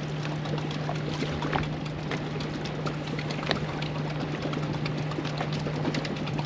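Choppy lake water lapping and splashing against a fishing boat's hull, over a steady low hum, with a few light knocks and ticks scattered through it.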